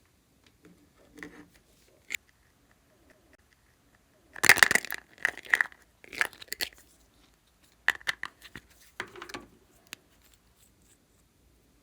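Glossy slime being squeezed and stretched by hand, giving sticky crackling pops in several bursts, loudest about four to six seconds in.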